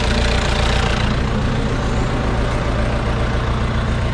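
Cat 252 skid steer's diesel engine running steadily just after being jump-started from a booster pack, its own battery being dead.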